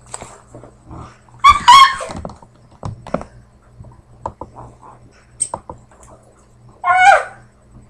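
Two short dog-like whimpering calls, a high whine about one and a half seconds in and a falling one near the end, with soft knocks and rustles between.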